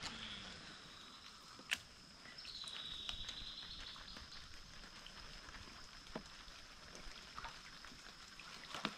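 Quiet forest-creek ambience: a steady high insect tone throughout, and a high call lasting about a second and a half starting about two and a half seconds in. A sharp click comes near two seconds in, with a few fainter clicks later.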